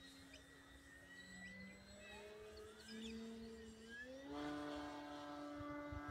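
Distant drone of electric-powered 2-metre RC Cessna model planes' motors and propellers overhead, more than one pitch at once. About four seconds in, the pitch rises and the drone gets louder as the throttle is opened.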